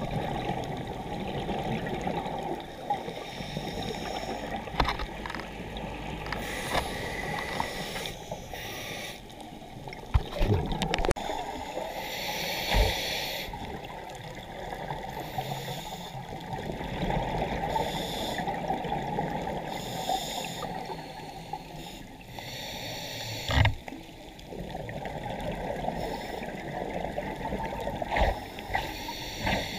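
Muffled underwater noise picked up through a camera housing, with a diver's scuba regulator exhaling bursts of bubbles every few seconds. A few short knocks, the loudest about ten seconds in and again past twenty-three seconds.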